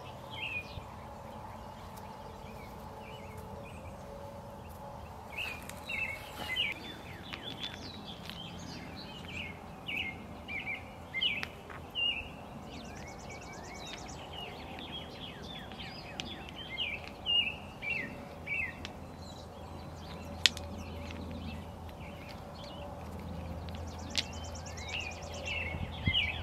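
Songbirds singing in woodland, a string of short chirpy phrases again and again, with a buzzy trill twice. One sharp click about twenty seconds in, fitting a stone knocking on stone as a fire ring is laid.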